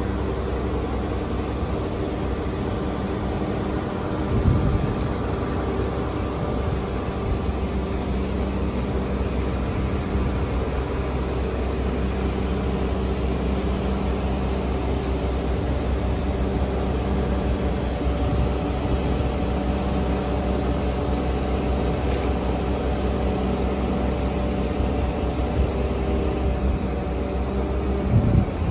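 Heavy mobile cranes' diesel engines running at a steady speed while hoisting a locomotive, a constant low hum. A brief louder rush comes about four and a half seconds in and again near the end.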